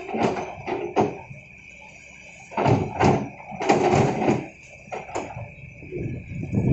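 Kobelco excavator working: a string of irregular clanks and scraping knocks over a steady high-pitched whine.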